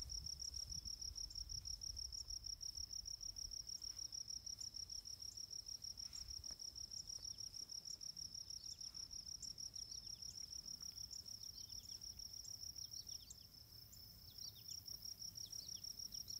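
Insects trilling in a steady, fast-pulsing high-pitched buzz, with faint short chirps over it in the second half.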